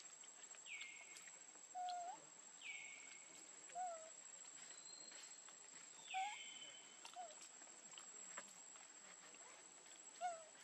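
Short animal calls repeating every second or two, a higher note that drops quickly and levels off alternating with a lower, hooked note, over a faint steady high-pitched whine.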